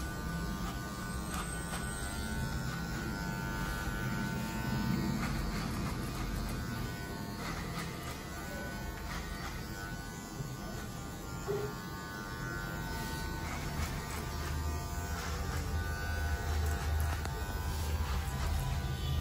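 Electric hair clipper buzzing steadily as it cuts short hair, worked up the back of the head over a comb.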